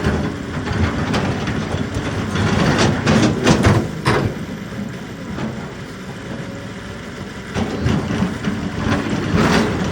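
Kobelco excavator's diesel engine running steadily, with a few sharp knocks about three to four seconds in and again near the end.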